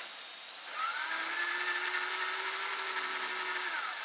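Small electric power tool motor spinning steadily for about three seconds, then winding down, as the cleaned spark plugs are run back into the engine.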